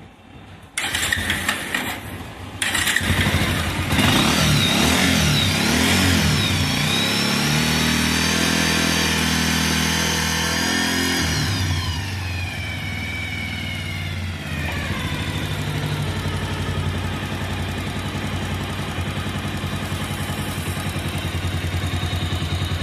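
Motorcycle engine started about a second in, catching fully after a brief dip, revved up and held for several seconds, then falling back to a steady idle. The ticking from the head, caused by a slack timing-chain tensioner, is no longer heard now that the tensioner bolt has been tightened part-way.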